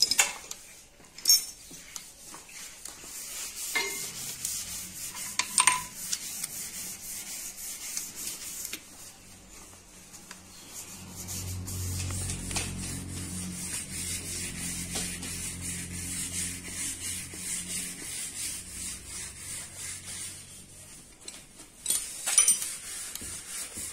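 Ratchet-head torque wrench working cylinder head bolts on a G4GC engine: ratchet ticking with sharp single clicks, the wrench's signal that a bolt has reached its set torque. Through the middle there is a low steady hum.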